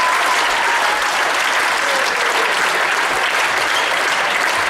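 Audience applauding, a steady dense clapping at an even level.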